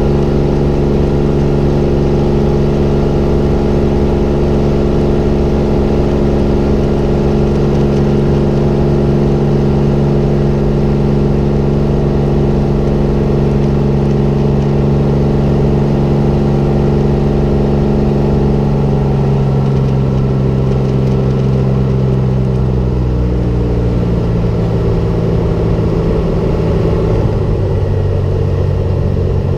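Cessna 210L's six-cylinder Continental IO-520 engine and propeller running steadily at climb power. About twenty seconds in, the note falls over a few seconds as power is reduced, then holds steady at the lower setting.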